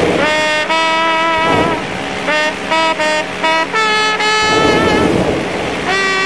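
Trumpet playing a jazz melody: long held notes broken up by short quick phrases.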